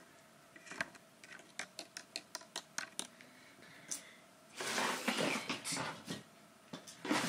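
A quick, irregular series of small taps and clicks, then loud rustling of tissue paper from about halfway in, which stops and starts again near the end.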